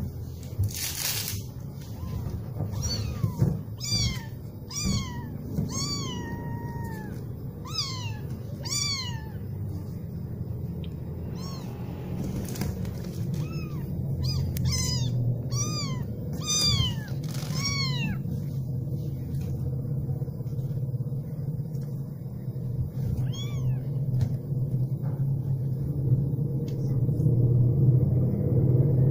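Very young kittens mewing: short, high-pitched cries that rise and fall, about one a second, in two runs of several calls and once more later on. A steady low rumble sits underneath.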